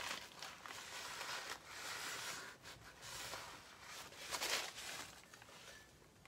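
Crumpled paper tissue rustling and dabbing on wet watercolour paper to lift paint, in soft, uneven bursts, the loudest a little after four seconds in.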